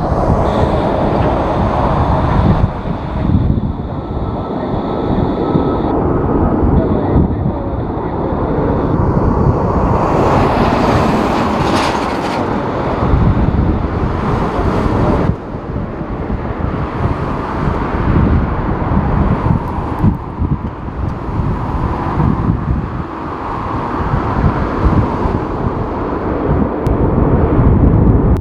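Airliner jet engines running with a thin high whine, heavily buffeted by strong gusting wind on the microphone.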